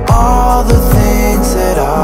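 Background pop music with a beat and repeated deep bass hits.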